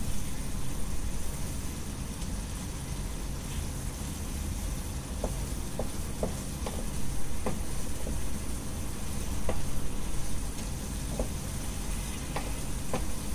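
Bread halwa, bread soaked in sugar syrup, sizzling in a frying pan while it is stirred with a wooden spatula. A steady hiss runs under irregular light clicks of the spatula against the pan.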